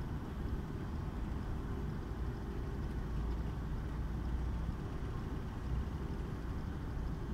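Horizontal tensile testing machine running with a steady low rumble and faint hum.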